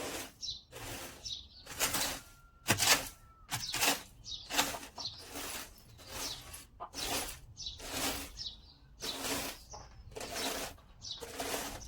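Steady rhythm of scraping strokes, about one every 0.7 s, as chicken droppings are cleaned out of the coop.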